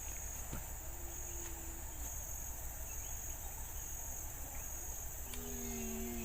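Insect chorus: a steady high-pitched hiss with a shrill note pulsing on and off about once a second. Faint low humming tones come in near the end.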